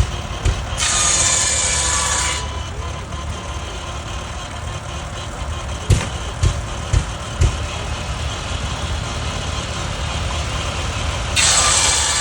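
International tractor engine running steadily, driving a belt-driven sawmill. Two bursts of high rushing noise come over it, one about a second in lasting about a second and a half and one near the end, with a few sharp knocks in the middle.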